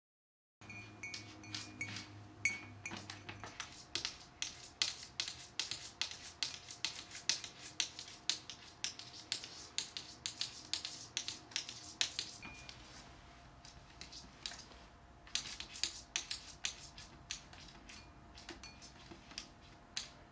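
A cat's paw repeatedly patting and wiping a hard wooden tabletop, its claws ticking in a fast, irregular run of sharp clicks. The clicks thin out for a couple of seconds a little past the middle, then pick up again.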